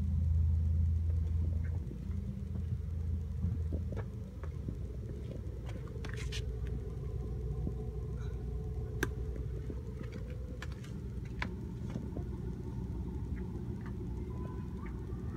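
Steady low hum of the small electric air pump that feeds the Smoke Daddy cold-smoke generator, with scattered light clicks and taps. A deeper, louder hum runs through the first four seconds.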